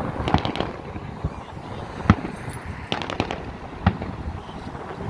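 Fireworks going off: irregular sharp bangs, some in quick clusters of crackling pops, the loudest single bang about two seconds in.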